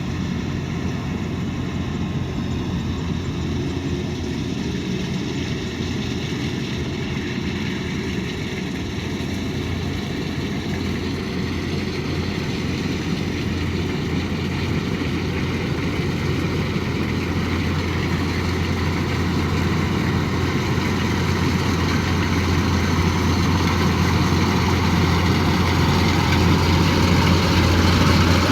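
Kubota DC108X combine harvester running steadily, its diesel engine hum under a broad mechanical rush, growing gradually louder over the second half.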